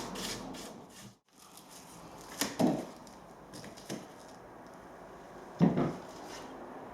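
Timber floorboards being handled, knocking against each other: two loud wooden thuds about three seconds apart, with a lighter knock between them.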